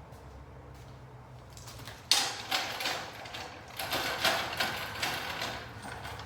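A steady low hum, then from about two seconds in a run of irregular sharp mechanical clicks and clatters.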